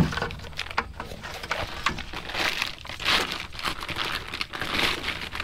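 Camouflage fabric backpack of a bucket pack being pulled out of a five-gallon bucket and unfolded by hand, its fabric and packing rustling and crinkling irregularly, loudest about two and a half to three seconds in and again about five seconds in.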